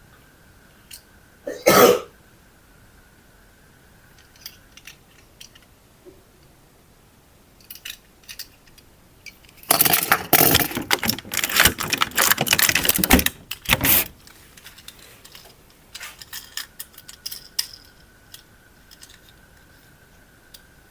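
Handling noises: scattered clicks and rattles, one loud brief burst about two seconds in, and a dense crackling, rustling stretch of about four seconds in the middle. A faint steady high tone sits under the opening seconds and returns near the end.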